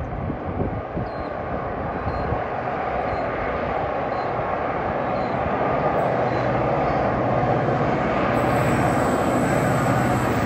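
Twin C-class diesel-electric locomotives approaching at the head of a freight train, a low engine drone growing steadily louder.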